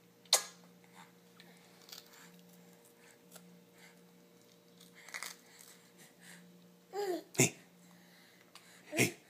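A baby making short vocal sounds: a sharp burst just after the start, then a short falling squeal and a giggle-like burst from about seven seconds in, and another near the end, with small clicks in between.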